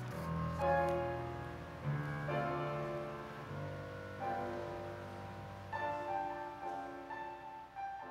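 Slow piano music: chords struck one after another, each left to ring and fade.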